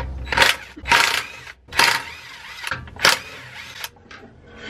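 Wrench spinning the lug bolts out of a BMW M5's front wheel, in four short bursts over a few seconds.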